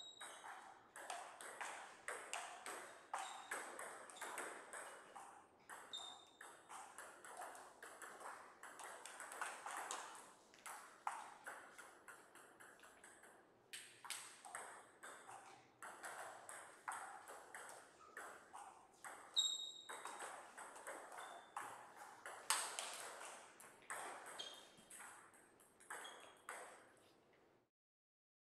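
Table tennis ball clicking in quick irregular runs off the table and rackets during rallies, with a few short high pings. The sound cuts out briefly near the end.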